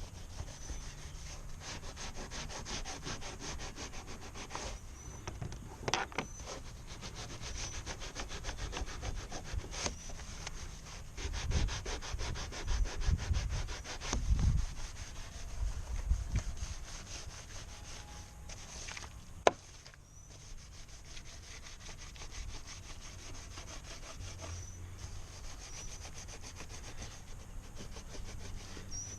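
Rapid back-and-forth scrubbing strokes on a kayak hull, working cleaner into a stained spot. Some dull low bumps in the middle and a single sharp click about two-thirds of the way through.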